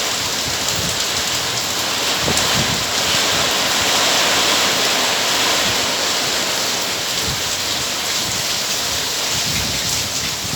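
Heavy tropical downpour: a dense, steady hiss of rain. Low rumbles swell up about two seconds in and again near the end, from thunder or gusts of wind.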